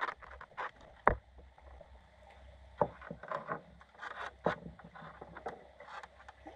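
Underwater sound picked up by a GoPro inside a submerged lobster trap: a low steady water rumble with scattered irregular clicks and knocks, the sharpest about a second in.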